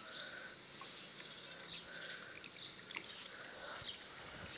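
Small birds chirping faintly: repeated short high chirps at irregular intervals over a faint steady background hiss.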